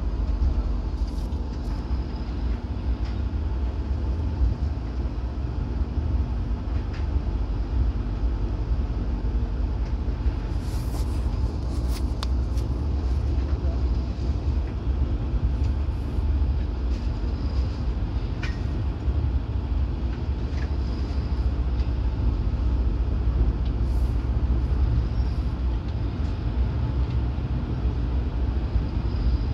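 Steady low rumble of a moving passenger train heard from inside the carriage as it pulls out of the station, with a few faint squeaks and clicks from the car.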